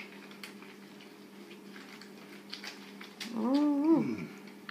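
A pet's short vocal call, about a second long, near the end; it rises, holds, then slides down in pitch. Under it runs a faint steady hum.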